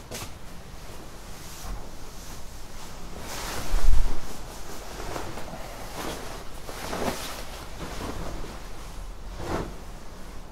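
Fabric rustling and swishing as a suit jacket is taken off, in several separate swishes, with a low thump about four seconds in.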